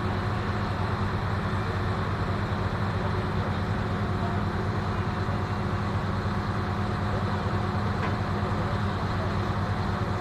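An engine idling with a steady low hum that stays level throughout.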